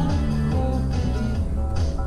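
A song with guitar playing on the car radio, with a steady bass line.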